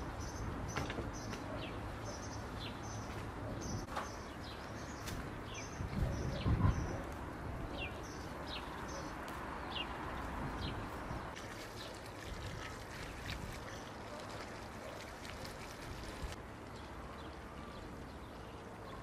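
Small birds chirping repeatedly with short high notes, thinning out after about eleven seconds, over a steady outdoor background. A low rumble about six seconds in is the loudest sound.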